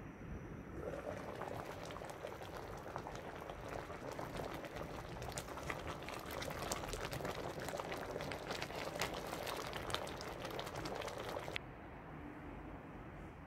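Tomato-based chicken stew bubbling at a simmer in an open pot, with a wooden spoon stirring through it. The bubbling drops off sharply near the end.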